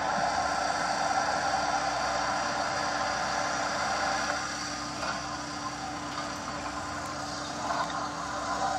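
JCB excavator's diesel engine running while its hydraulic breaker hammers on rock, a dense, steady clatter.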